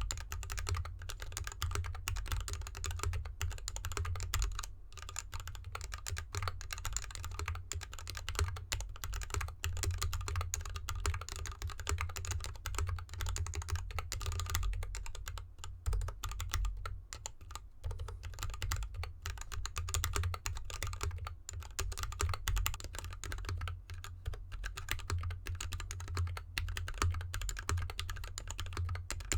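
Mechanical keyboard typing: a GK64X in an anodized aluminium case with dampening foam, lubed Gateron linear switches and DSA keycaps, keys clacking in a fast, continuous stream of keystrokes.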